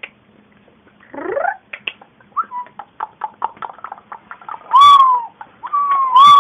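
A pet animal making noise: a rising squeal about a second in, a run of rapid clicks, then loud repeated arched calls near the end.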